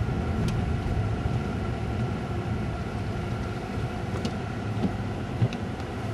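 Steady low rumble of a car running, heard from inside the cabin, with a few faint light ticks.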